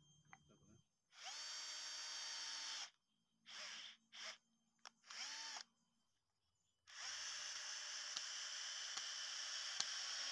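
Electric hand drill boring through bamboo tubes: a run of about two seconds, then several short bursts on the trigger, a pause, and steady drilling from about seven seconds in. Each start rises in pitch as the motor spins up.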